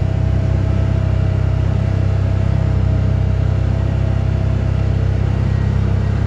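Side-by-side UTV engine running at a steady speed on a dirt trail, heard from the seat as a loud, even low drone. A faint steady whine sits over it through the first half.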